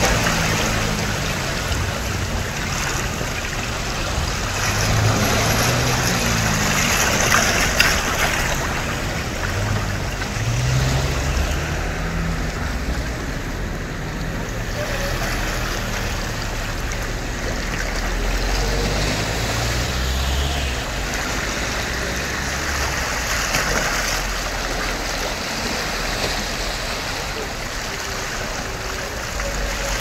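Small sea waves washing along the shore in a steady wash of noise, with faint low sounds underneath.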